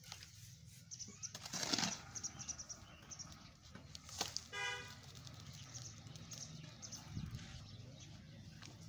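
Metal hoe scraping and scooping wet cement-gravel mix into an iron pan, with irregular scrapes and knocks, the loudest scrape a little under two seconds in. A brief horn toot about four and a half seconds in.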